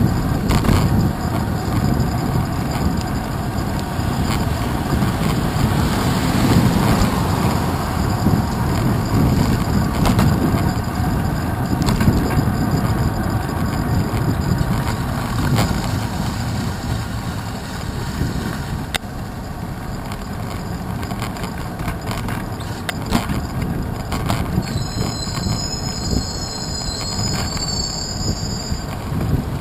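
Bicycle ride on a wet city street heard from a handlebar-mounted camera: steady rumble of tyres and wind, with knocks as the bike jolts over bumps. Near the end a high brake squeal lasts about four seconds.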